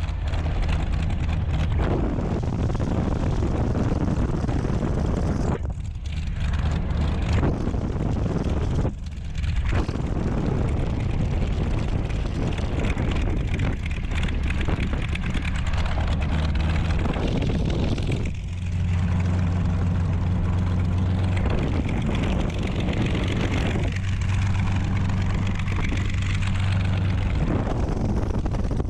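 Curtiss P-40 Warhawk's V-12 piston engine and propeller running at low power while the fighter taxis, heard from the cockpit as a steady low engine drone.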